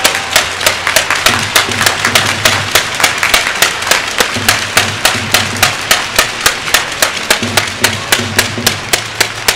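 Stadium crowd clapping in unison, sharp claps at a steady rhythm of about three to four a second.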